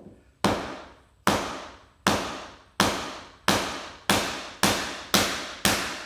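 A mallet striking a 3.5-inch brick chisel set on an Aspect metal peel-and-stick backsplash tile over a cinder block, chiselling the tile in half along a marked line. Nine sharp strikes, each ringing briefly, coming a little faster toward the end.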